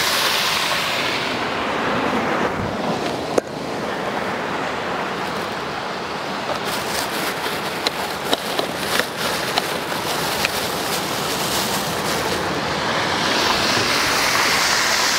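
Corn-flour-coated crab pieces deep-frying in hot oil in a wok, the first fry of a double fry: a steady sizzle with scattered sharp pops and crackles, thickest in the middle of the stretch.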